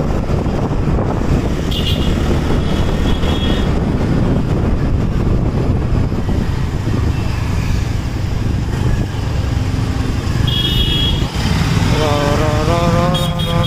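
Steady low running noise of a two-wheeler's small engine and road and wind noise while riding through city traffic. Brief high tones come twice, and a wavering voice is heard near the end.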